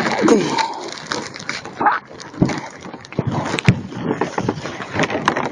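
Footsteps crunching on hard-frozen snow, an uneven run of short crackles, with a brief falling squeak near the start.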